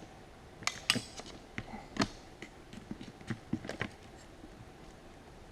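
Irregular sharp clicks and knocks of hard plastic and metal parts of an old surge protector being handled and worked at, about a dozen in the first four seconds, while its power cord is forced to break free; then it falls quiet.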